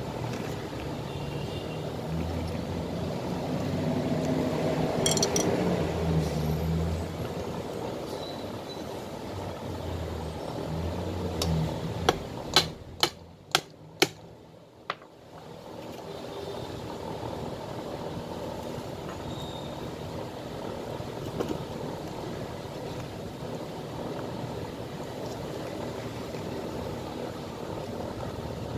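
Five sharp taps in quick succession, a thin metal rod striking a leather safety boot, about twelve to fourteen seconds in. Under it a steady low hum, louder in the first few seconds, with handling noise of the boot.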